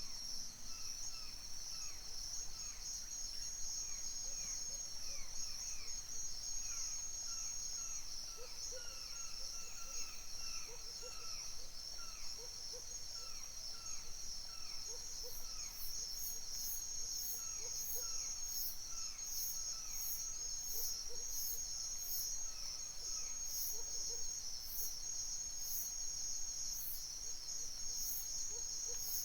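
Forest dawn soundscape dominated by a steady, high-pitched chorus of crickets and insects. Over it come repeated short, falling bird calls and faint low short notes. About halfway through, a very high-pitched insect pulse joins in, repeating about one and a half times a second.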